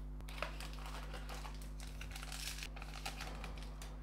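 Glossy trading cards being handled: stiff card stock sliding and scraping against other cards as one is set down on a pile and the next is taken up, in an irregular run of scratchy sounds with a couple of sharp clicks.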